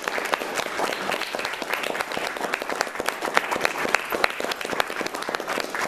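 Small audience applauding, with sharp individual claps standing out in the dense, steady clapping.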